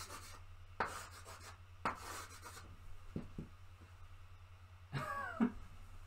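Chalk scratching on a blackboard in three short strokes over the first two and a half seconds, over a steady low hum. A brief voice sound comes about five seconds in.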